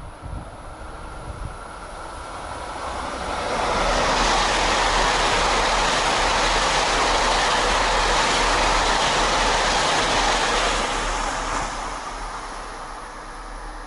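KiHa 261-1000 series diesel multiple unit passing through the station at speed. The rush of the train on the rails builds over a couple of seconds, holds loud for about seven seconds as the cars go by, then fades away as it recedes.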